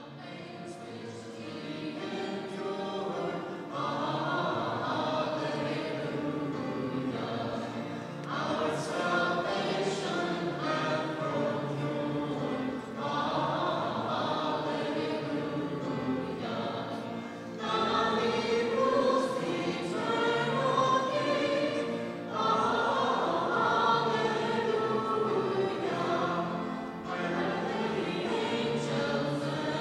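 A choir singing in long held phrases, used as background music, fading in at the start.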